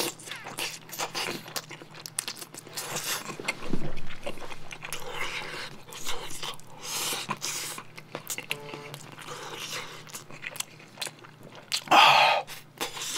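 Close-miked chewing of steamed dumpling and rice: many short mouth clicks and smacks as the food is bitten and chewed, with one louder burst near the end.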